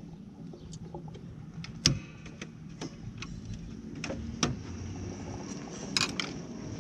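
Sharp clicks and taps of a screwdriver and hands working at a headlight's plastic clips and mounting. The loudest click comes about two seconds in, two more follow around four and a half seconds, and a quick cluster of clicks comes near the end.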